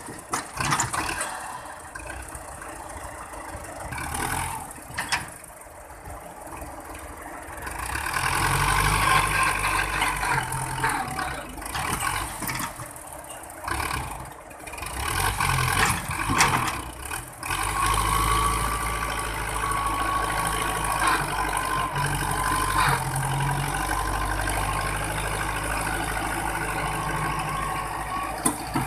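Diesel engine of a 510 farm tractor labouring as it pulls a heavily loaded sand trailer. The engine is quieter at first, gets louder about eight seconds in, and from a little past halfway holds a steady, louder note with a thin whine over it.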